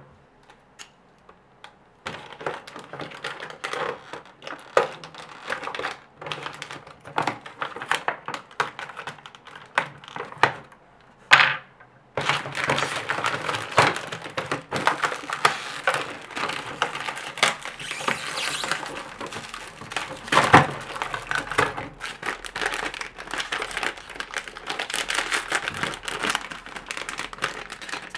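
Plastic packaging being handled: clear plastic bags crinkling, with irregular clicks and taps of small plastic parts against a thin vacuum-formed plastic tray. It starts after about two seconds of quiet and gets busier after a short lull partway through.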